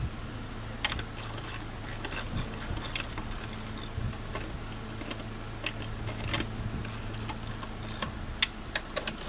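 Irregular clicks of a ratchet wrench working a car battery terminal, most of them in a cluster a second or so in and again near the end. A steady low hum runs underneath.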